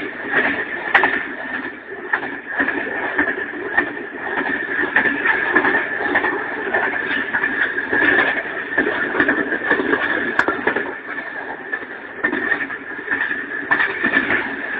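Locomotive running along the track, heard from its open cab doorway: steady running noise with a high whine held over it and frequent rattling clicks.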